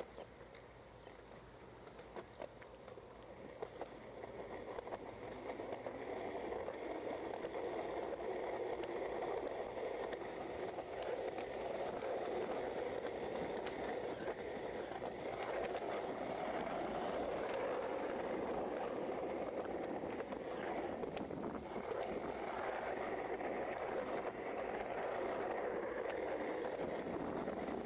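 Skateboard wheels rolling over a paved path, a steady rumbling rush that grows louder over the first few seconds as speed builds, then holds steady, with small clicks from cracks in the surface.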